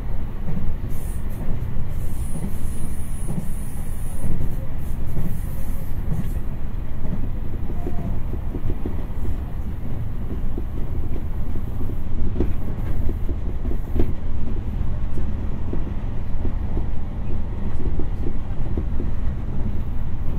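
Meitetsu electric train running at speed, heard from inside the carriage: a steady low rumble of wheels on rail with occasional light clicks.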